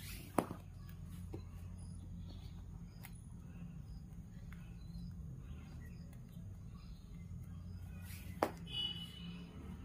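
Faint rustle of macrame cord being worked into half-hitch knots over a steady low hum, with two sharp clicks, about half a second in and near the end.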